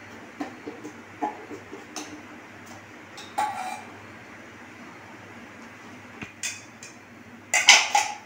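Metal spoon scraping and tapping against a small pan as boiled beetroot and tomato are scooped into a steel mixer-grinder jar, with light knocks throughout. A louder clatter of metal comes near the end.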